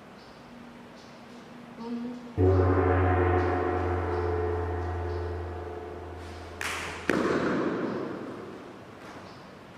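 A gong struck once, ringing with a deep hum and many overtones that slowly die away. About four seconds later come two sharp crashing hits half a second apart, each ringing out.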